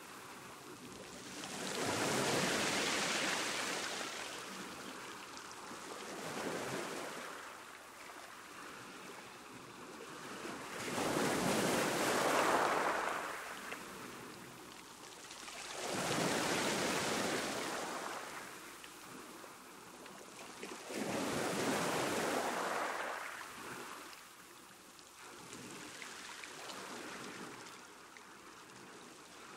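Ocean waves breaking and washing up on a beach, one wave about every five seconds, each swelling to a rush of surf and then easing off.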